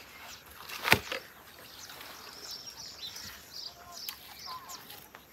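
Small birds chirping repeatedly, with a single sharp knock about a second in as the plastic lid of the clay bowl is put down on the ground.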